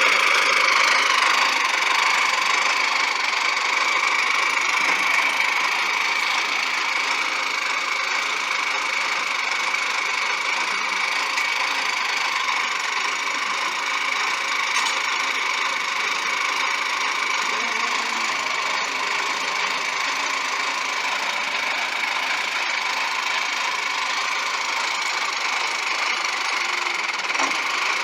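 Allis-Chalmers 715C backhoe's engine running steadily, a little louder for the first few seconds.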